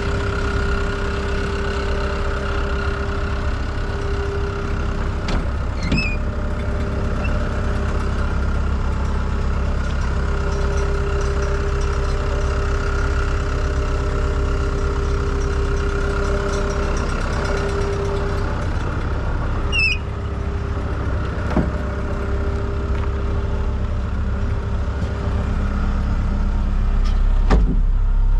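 Diesel engine of a 2018 ASV RT120 compact track loader running steadily with a deep hum and a held mid-pitched tone. A few brief squeaks or clicks sound over it, and it grows slightly louder near the end.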